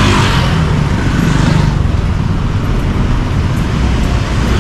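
Street traffic noise: a steady rumble of road traffic, with a vehicle passing close by in the first couple of seconds.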